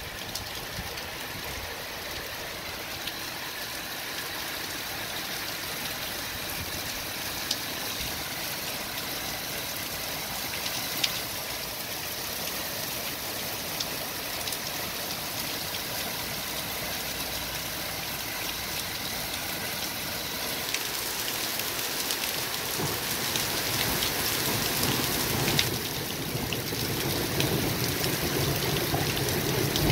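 Heavy rain pouring down onto paving stones and garden, a dense steady hiss with scattered sharper drop ticks. It grows louder in the second half.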